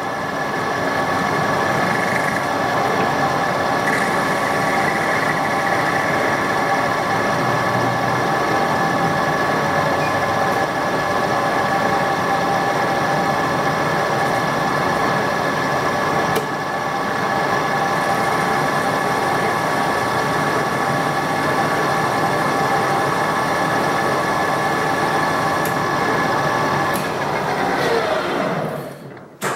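Metal lathe running under power with a steady gear whine of several tones while a carbide insert tool takes a light skim cut along a 360 brass rod. Near the end the spindle winds down, the whine falling in pitch as it stops.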